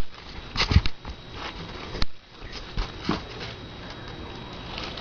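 Scattered knocks, taps and rustling, the loudest knock just under a second in and others around two and three seconds in.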